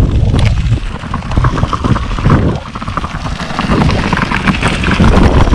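A steel road bike on 30 mm tyres rolling over a rough dirt road: a loud, rumbling noise of tyres and wind on the microphone, with a dense patter of small rattles and clicks from the bike shaking over the gravel.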